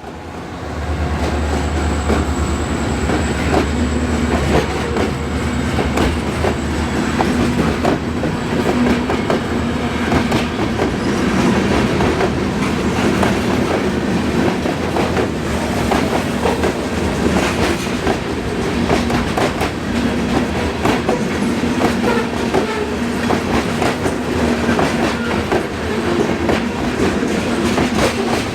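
Freight train rolling past, led by EMD diesel-electric locomotives. A deep engine rumble dominates the first few seconds, then a long string of freight cars passes with steady wheel clickety-clack over the rail joints.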